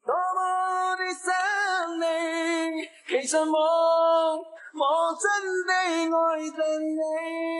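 A woman's voice singing a short phrase with long held notes, starting abruptly.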